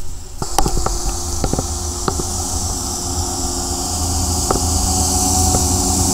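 Studebaker M29 Weasel tracked snow vehicle running, its six-cylinder engine a steady hum with a low rumble, growing louder as it comes closer. Sharp metallic clanks from the running gear come several times in the first two seconds and a few more later.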